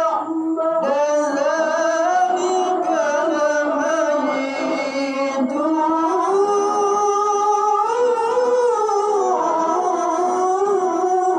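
Male Quran reciter (qari) chanting a long melismatic phrase in a high voice into a handheld microphone. The melody wavers in ornaments, climbs higher partway through and then eases back down.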